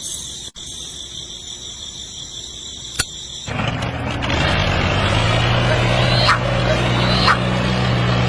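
An engine running steadily with a low hum. It comes in abruptly about three and a half seconds in, after a quieter stretch with a faint high steady tone and a couple of clicks.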